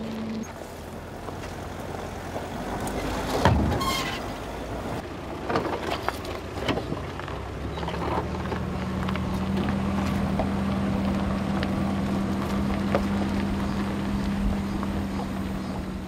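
Minivans driving slowly up a rough, rocky dirt track: tyres crunching and knocking over loose stones, with a louder knock about three and a half seconds in. An engine hum holds steady from about halfway.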